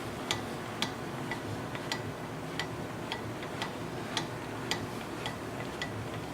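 Metallic ticking about twice a second, each tick with a short ring, as the lathe carriage carrying a dial indicator is run along the bed ways, over a low steady hum.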